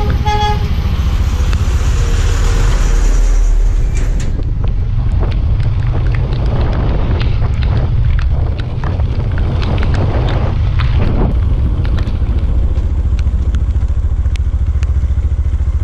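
Road traffic: a vehicle horn sounds briefly at the start, then a vehicle engine runs steadily low throughout, with wind buffeting the microphone and scattered clicks and rattles.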